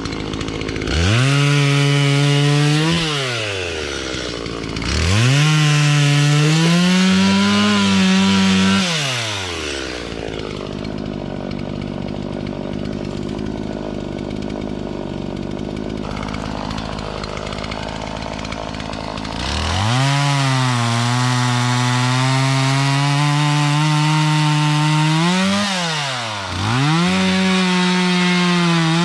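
Stihl two-stroke chainsaw throttled up to full speed in bursts: twice early on, then idling for several seconds, then a long run at full throttle and a few quick drops and re-revs near the end.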